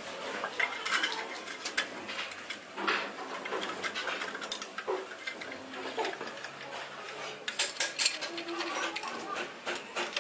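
Irregular metal clinks and clicks of parts being handled on a workbench while an electric motor is assembled: the terminal box cover fitted onto the motor housing and screwed down, with a dense run of clicks a little after the middle.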